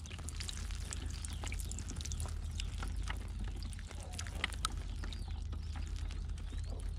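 Live whitebait flicking and wriggling in the mesh of a lifted whitebait net, an irregular scatter of small quick ticks and patters over a steady low rumble.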